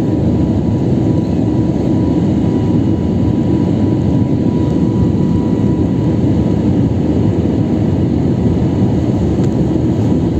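Steady low roar inside an airliner's cabin during the climb after takeoff: jet engines and rushing air, with a faint steady high tone above it.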